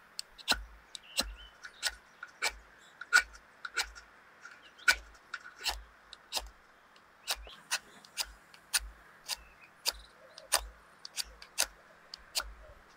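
A knife scraped down a ferrocerium fire steel again and again, about twenty short, sharp strokes at roughly one and a half a second, striking sparks onto a tissue-and-wood-wool tinder nest to light it.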